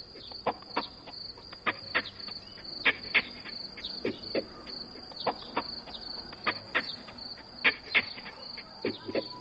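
Crickets chirping in a steady high trill, with short sharp ticks scattered irregularly over it, a few a second.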